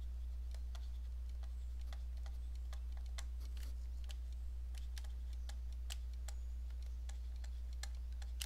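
Stylus tapping and clicking on a tablet screen during handwriting: irregular light ticks a few times a second, over a steady low hum.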